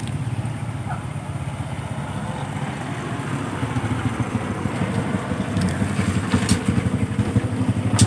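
A small engine running with a low, fast-pulsing rumble that slowly grows louder toward the end.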